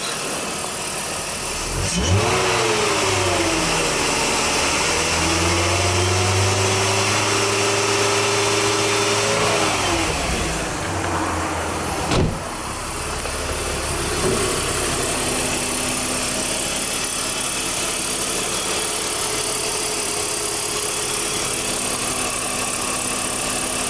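BMW M54 inline-six running, revved up about two seconds in and held there for some eight seconds before dropping back to a steady idle, with a single click shortly after. The engine has just had its camshaft trays replaced to cure a hydraulic lifter rattle.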